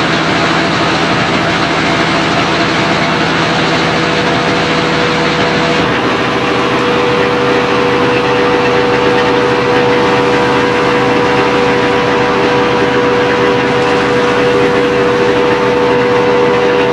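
Turntable-ladder fire truck's engine running steadily while the ladder is worked from its turntable controls; about six seconds in the sound shifts and a steady whining tone joins it.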